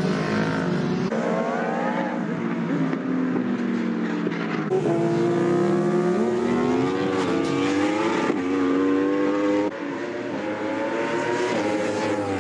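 Racing superbike engines at high revs, the pitch rising and falling as the bikes accelerate, shift and pass. The sound changes abruptly a few times as different bikes take over.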